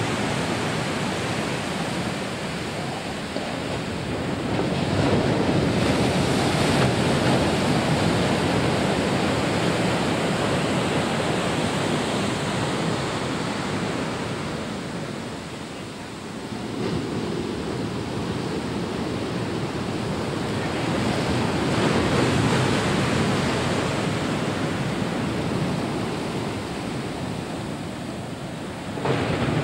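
Ocean surf breaking and washing up on a beach, a steady rush that swells and fades as the waves come in, with some wind on the microphone.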